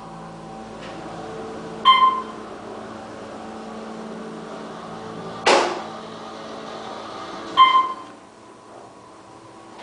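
Elevator drive motor humming steadily as the car runs. A short electronic chime or beep sounds twice, about 2 and 7.6 seconds in, and there is a single loud clunk about 5.5 seconds in.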